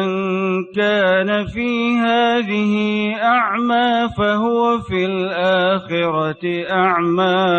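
A man reciting the Qur'an in melodic tajweed style, holding long drawn-out notes with wavering ornamented pitch and pausing only briefly for breath.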